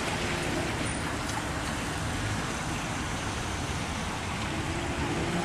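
Steady road traffic noise, an even rush of passing vehicles.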